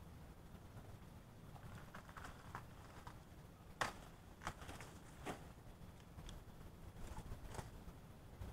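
Scattered sharp snaps and rustles of banana leaves being pulled and broken off by hand, the loudest about four seconds in.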